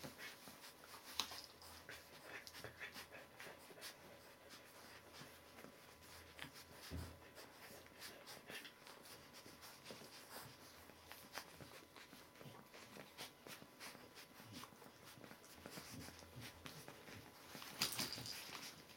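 Faint scuffling and newspaper rustling from three-week-old Border Collie puppies crawling and nosing about on paper, with small clicks and soft puppy noises, and a brief louder rustle near the end.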